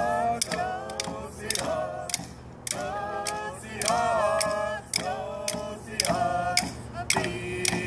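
A group of men and women singing a traditional Coast Salish song in unison, with hand drums struck in a steady beat about twice a second.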